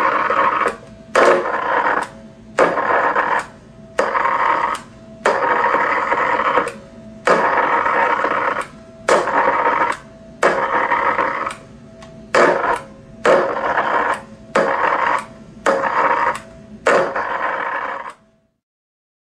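High-voltage circuit driven by a microwave oven transformer, buzzing and sparking, switched on and off over and over: loud harsh electrical buzzing in bursts of roughly half a second to a second with short gaps between them, stopping suddenly near the end.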